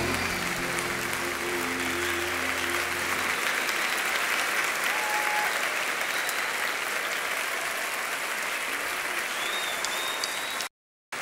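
Crowd applauding, an even clapping with music underneath that fades out in the first few seconds. The sound cuts off abruptly just before the end.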